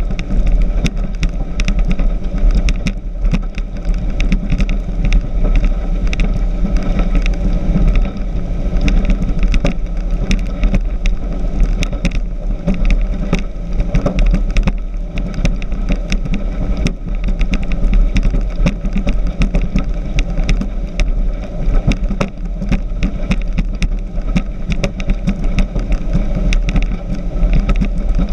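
Speedboat running at speed: a steady engine drone mixed with rushing wind and water noise, loud and unbroken throughout.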